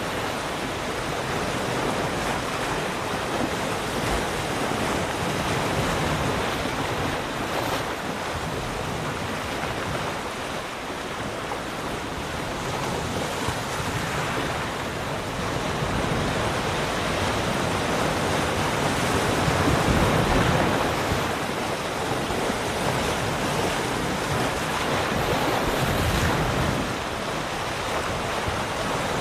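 Ocean surf: a continuous wash of waves breaking and rolling in, swelling and easing slowly, with one stronger surge about two-thirds of the way through.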